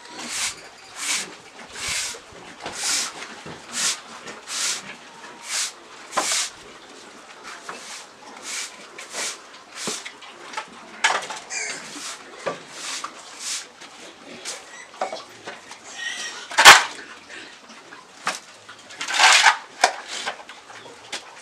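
Stiff broom sweeping pig dung across a sty floor, in brisk repeated scrapes a little under a second apart that become sparser after about seven seconds. A single sharp knock about three-quarters of the way through is the loudest sound, and there are louder scrapes near the end.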